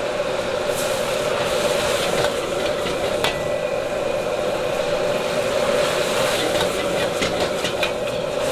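Gas wok burner burning with a steady rush under a stir-fry of duck slices and green onion, which sizzles in the wok. Near the end a metal ladle begins scraping and clicking against the wok as the food is tossed.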